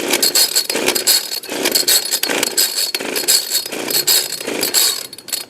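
Chainsaw's recoil starter cord yanked over and over in quick succession, each pull a short rasping whir, with the engine not catching. The choke is pulled out, and the puller suspects he has flooded the engine.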